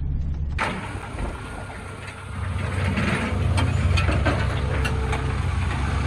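Ford Ranger pickup's engine labouring at full effort under a very heavy load, towing a gooseneck trailer carrying a backhoe, with a steady low drone and scattered knocks and rattles. A broad hiss comes in abruptly about half a second in, and the sound grows a little louder a couple of seconds later.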